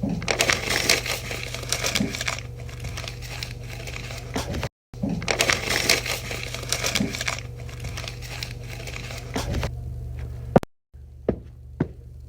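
Crunching, crinkling noise full of small cracks, like something being crushed or crumpled, in two stretches of about five seconds with a brief break between them, over a steady low hum. After a sudden cut near the end come a few sharp knocks, about two a second.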